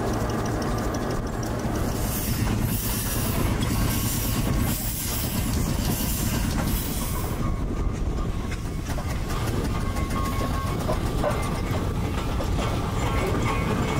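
Steam engines at work: a steady mechanical clatter over a low hum, with steam hissing that is strongest in the first half.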